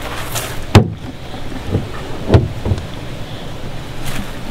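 A 4-inch PVC filter pipe knocking against a black plastic tank as it is handled and laid across it: a sharp knock about a second in, a couple of lighter knocks, and another sharp one about halfway through, over wind noise on the microphone.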